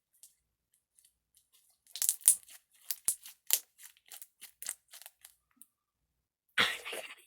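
Slime being squeezed and worked in the hands, giving a run of sharp crackles and pops, several a second, from about two seconds in. A louder rustling burst comes near the end.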